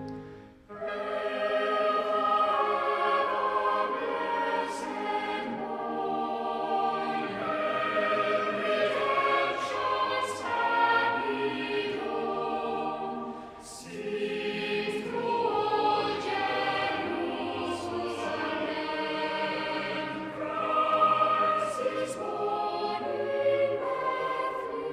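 Background music: a choir singing slow sustained chords.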